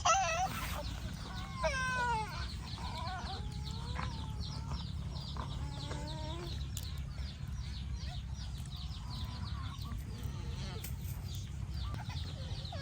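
Chickens clucking, with several gliding calls in the first two seconds, a fast run of high repeated chirps through the middle, and more calls right at the end, over a steady low rumble.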